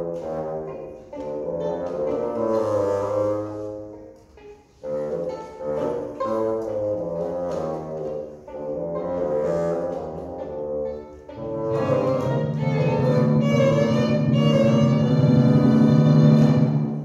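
Live chamber music on violin and bassoon: short detached notes with a brief pause about four and a half seconds in, then from about twelve seconds a louder passage on low held notes that stops just before the end.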